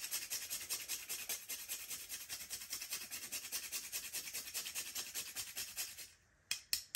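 Whole nutmeg being grated on a small stainless-steel hand grater: quick, even rasping strokes that stop about six seconds in, followed by two sharp clicks.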